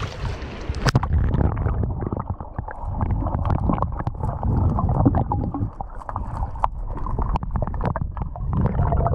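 Muffled underwater sound picked up by an action camera in its waterproof housing as a swimmer moves it through the water: a steady low rumble of churning water with many scattered faint clicks.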